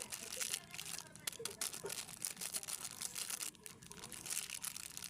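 Plastic snack packaging crinkling and tearing as it is handled, a dense run of fast crackles with a short lull near the end.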